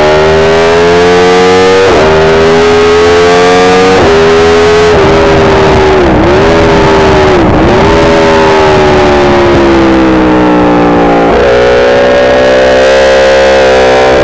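Aprilia RSV4 V4 sportbike engine at speed, heard from on board. It revs up and drops sharply twice early on as it shifts up through the gears. Around the middle the engine note dips and recovers twice, then it sinks slowly before the bike accelerates hard again near the end.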